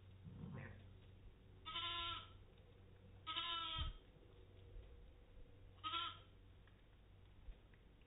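Katahdin sheep bleating: three short bleats, about a second and a half to two seconds apart, the last one shortest, with a brief low sound before the first.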